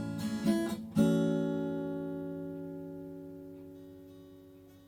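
Acoustic guitar music: a few quick strummed chords, then a final chord about a second in that rings out and slowly fades away.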